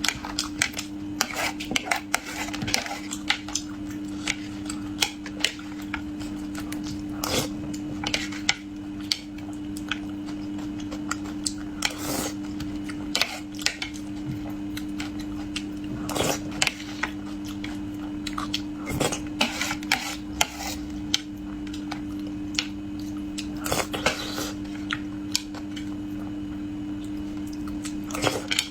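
Eating utensils clicking against dishes during a meal of braised fish, many short clicks at irregular intervals, over a steady low hum.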